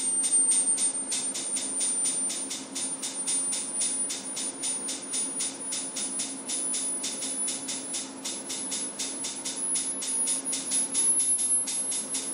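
A high-pitched sine test tone sweeping slowly upward in pitch, the frequency sweep of a resonance measurement. Under it there is a fast pulsing hiss at about five pulses a second and a low steady hum.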